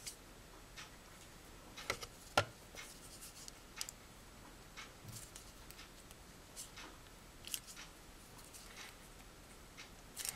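Faint, scattered small clicks and ticks of needle-nose pliers gripping and bending a thermal fuse's wire lead into a loop, with fingers handling the part. The sharpest click comes about two and a half seconds in.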